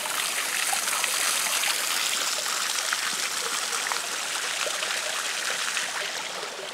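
Rain runoff rushing over flooded concrete: a steady hiss of running water that eases a little near the end.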